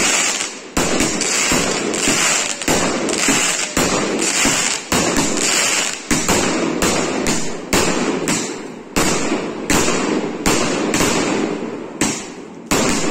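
Aerial fireworks going off in quick succession: sharp bangs about one to two a second, with a continuous crackling fizz of burning stars between them.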